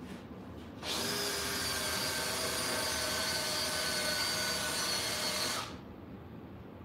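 Electric power tool motor spinning up quickly, running at a steady whine for about five seconds, then winding down and stopping.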